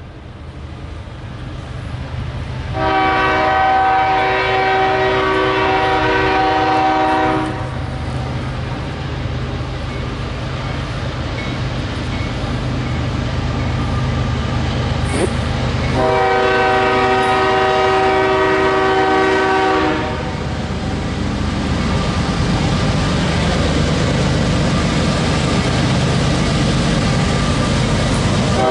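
Air horn of the CSX freight locomotives approaching a grade crossing: two long blasts on a multi-note chord, each about four to five seconds, sounding for the crossing, with another blast starting right at the end. Under the horn, a low rumble from the approaching train builds steadily.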